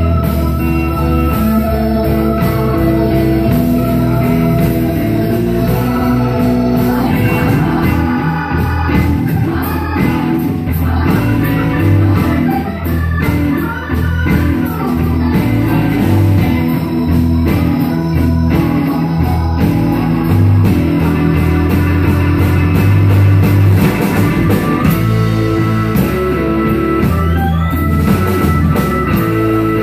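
A live blues-rock band playing an instrumental break: a keyboard holding sustained chords over electric bass and a drum kit with cymbals, with no vocals.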